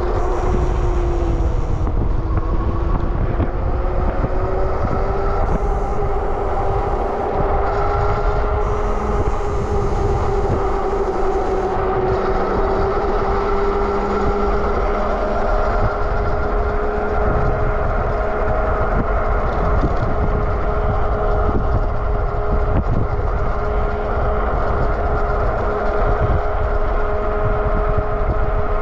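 Super73 RX electric bike's hub motor whining steadily at speed, its pitch climbing a little over the first few seconds and then holding, over heavy wind rumble on the microphone.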